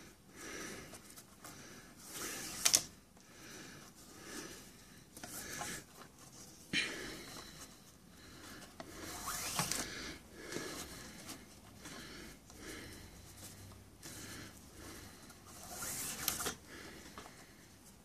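Nylon paracord strands rubbing and swishing as they are threaded through a weave and pulled by hand, in faint irregular bursts; the sharpest come a few seconds in, around nine seconds in, and near the end.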